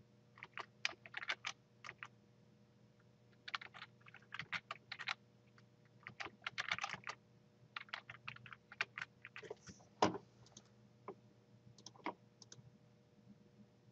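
Keystrokes on a computer keyboard, typed in quick runs with short pauses, then one louder click about ten seconds in and a few scattered clicks after.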